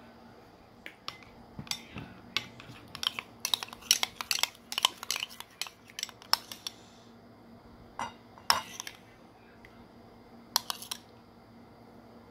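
Metal spoon stirring a thick creamy dressing in a white ceramic bowl, clinking and tapping against the bowl. There is a quick run of taps for about six seconds, then a few scattered clinks.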